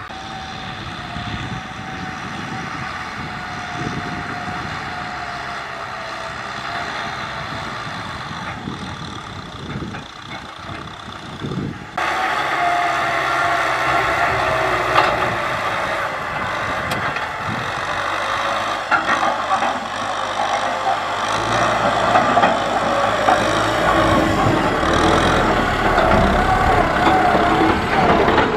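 Kubota M6040SU tractor's diesel engine running steadily under load, with a whine that wavers slightly in pitch. About twelve seconds in, the sound jumps abruptly louder and stays so.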